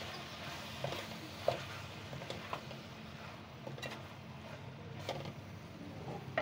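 Wooden spoon stirring sliced ridge gourd in a metal kadai, with scattered light knocks and scrapes against the pan over a faint steady hiss.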